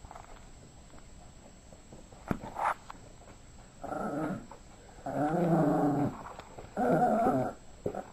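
Yorkshire terrier growling in three stretches, the middle one the longest and loudest: a play growl during a game of ball. Two short knocks come just before the growling.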